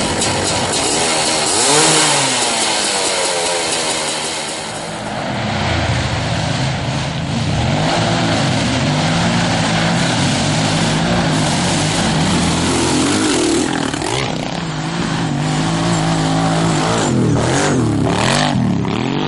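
Small off-road engines, from dirt bikes and ATVs, running and revving, the pitch rising and falling again and again with the throttle.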